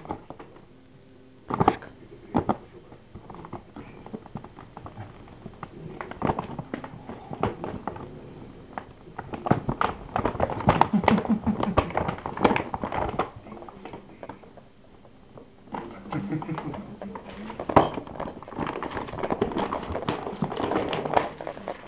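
Paper gift bag rustling and crinkling as a cat climbs and shifts about inside it, in uneven spells of crackling that are loudest in the middle and again near the end.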